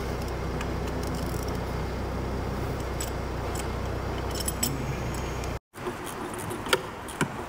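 Light metallic clinks and rattles from parts and hand tools being handled while fitting components around the turbocharger, over a steady low hum. After a brief cut-out near the end, a few sharper taps.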